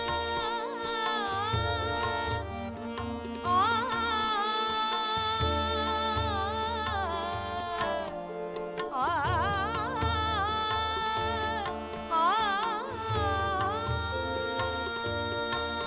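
A devotional song (Marathi abhang or bhajan) sung with long held, ornamented notes over steady tabla beats.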